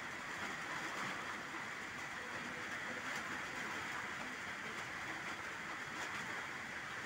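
Steady rain falling on pond water and tree leaves: an even hiss with a few faint drop taps.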